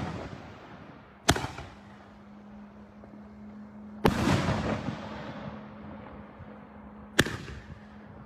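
Fireworks shells bursting: three sharp bangs a few seconds apart, each trailing off in echo, the middle one the loudest with a long rumbling, crackling tail.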